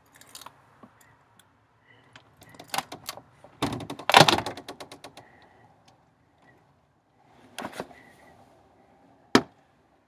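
Glass door being handled and opened: scattered clicks and rattles, a loud burst of clattering about four seconds in, more rattling near eight seconds and a single sharp thump near the end.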